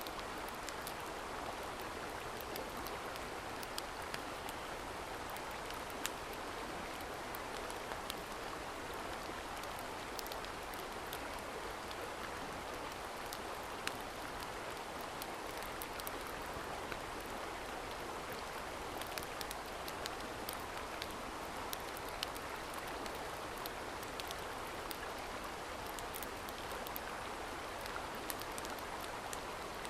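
Steady rush of a mountain stream, with small sharp crackles and ticks scattered throughout.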